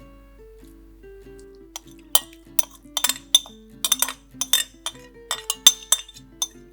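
A quick run of sharp clinks of kitchen utensils against dishes, starting a little under two seconds in and going on to near the end. Soft plucked background music plays underneath.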